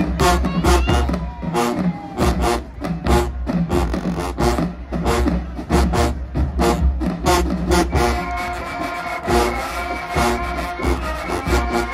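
Marching band playing a stand tune: a driving percussion beat over sousaphone bass lines, with the horns coming in on held chords about eight seconds in.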